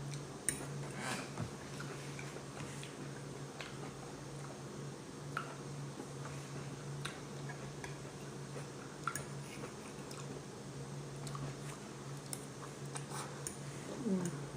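Close-up chewing and mouth sounds of someone eating a soft tofu scramble: scattered small smacks and clicks over a steady low hum.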